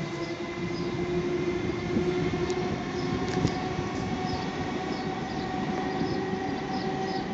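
Steady mechanical rumble with several held humming tones over it, a few clicks about two to three seconds in, and faint short high chirps now and then.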